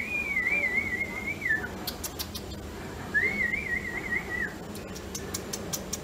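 Two warbling whistles at a steady pitch with a quick wobble, each about a second and a half long, one at the start and one about three seconds in. A few sharp clicks come between and after them.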